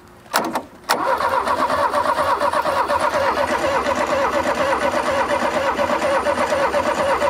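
Air-cooled flat-four engine of a Volkswagen Super Beetle being turned over by its starter motor: a short bump of the starter, then from about a second in a steady rhythmic cranking that does not catch. It turns over freely with no clunks or clanks, but does not fire; the ignition points are corroded and it is getting no spark.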